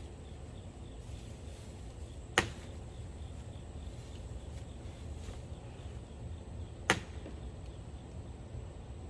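Two sharp single knocks, about four and a half seconds apart, over a low steady background rumble.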